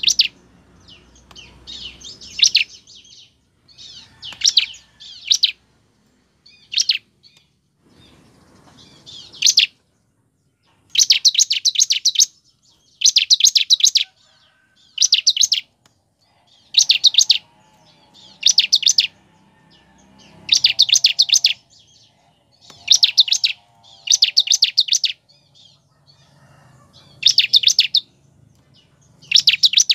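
Bar-winged prinia (ciblek) singing: high, rapid trilled bursts about a second long. They are short and scattered at first, then repeat about every two seconds from roughly ten seconds in.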